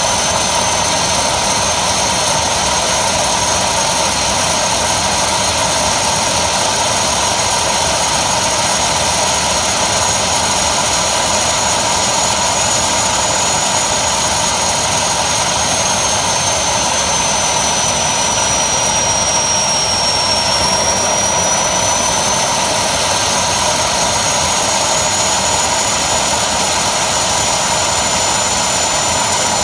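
Homemade turbocharger turbojet running steadily: an even, loud rush with a high turbine whine that dips a little about two-thirds of the way through and climbs back.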